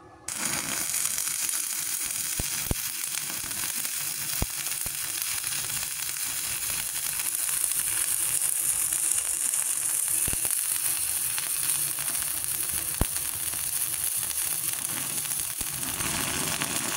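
Stick-welding arc from a 2.6 mm electrode at 70 amps on an EG 250A-SC inverter welder: it strikes up suddenly just after the start, then a steady crackling sizzle with a few sharp pops. The welder judges this rod size to run quite well at this setting.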